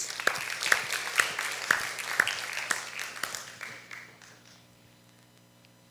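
Congregation applauding, with individual claps clearly separate, thinning out and dying away about four seconds in.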